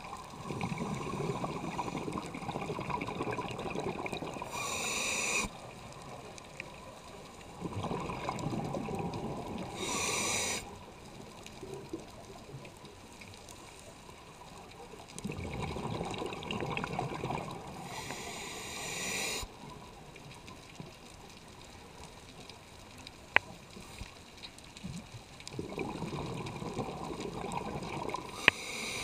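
Scuba diver breathing through a regulator underwater: four bursts of exhaled bubbles, each a few seconds long and ending in a short hiss of air, coming about every eight to ten seconds with quieter water between. A single sharp click is heard about two-thirds of the way through.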